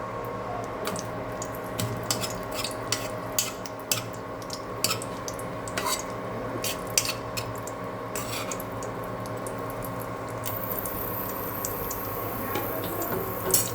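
Breaded chicken Kiev shallow-frying in oil on a medium flame: many irregular sharp crackles and pops over a steady hum.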